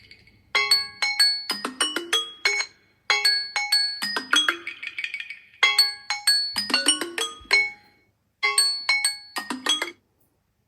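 Samsung Galaxy Z Flip 6 timer alert tone playing from the phone's speaker. A short marimba-like phrase of quick ringing notes repeats four times, about every two and a half seconds, then stops about ten seconds in.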